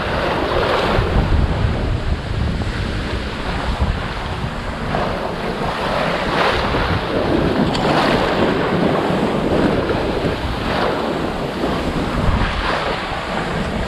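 Water rushing and splashing along a wooden sailboat's hull as it sails through choppy seas, with strong wind buffeting the microphone. The splash surges every second or two as the hull meets each wave.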